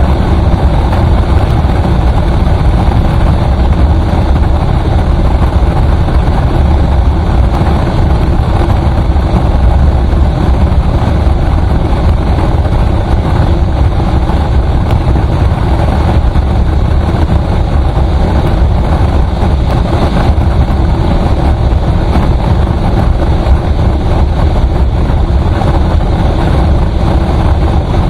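Steady, loud noise of a moving road vehicle: engine, tyres and wind mixed in a constant rumble with no change.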